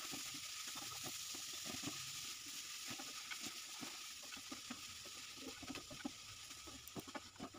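Wooden spatula stirring grated radish into spice paste in a non-stick frying pan: a faint, irregular run of small clicks and scrapes over a steady hiss.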